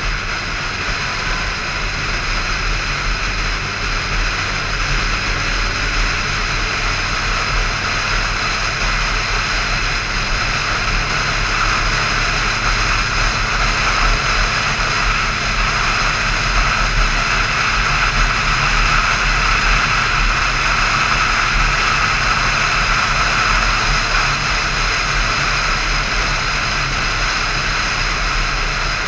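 Cruiser-style motorcycle running steadily at road speed, its engine drone under a steady rush of wind noise on the microphone.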